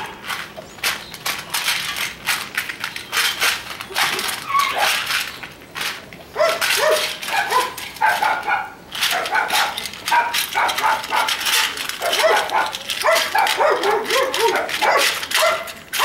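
Dobermann puppy eating dry kibble from a metal bowl: a run of sharp crunches and clinks of kibble against the bowl. From about six seconds in, a dog's short barks and yips come in repeatedly over the eating.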